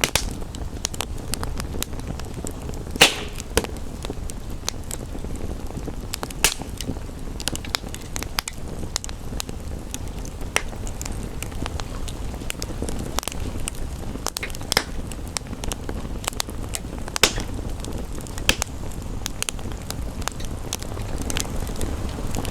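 Wood fire crackling, with frequent small clicks and a few louder pops about 3, 6, 15 and 17 seconds in, over a steady low rumbling hiss.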